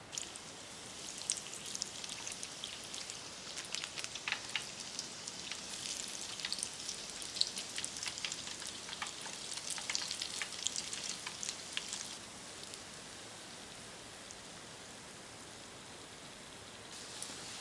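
Donuts frying in hot oil: a dense crackling sizzle with scattered pops for about twelve seconds, then settling to a softer steady hiss.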